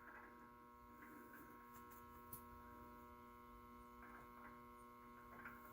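Near silence: a faint, steady electrical hum, with a few faint ticks.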